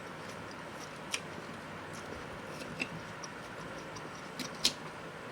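A few short, sharp mouth clicks from someone eating, over a steady faint hiss.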